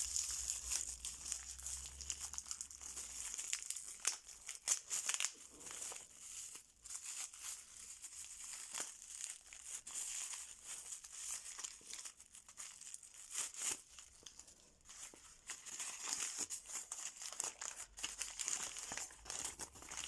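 Packaging being handled and unwrapped: irregular crinkling, crumpling and tearing as the wrapping is pulled off a parcel.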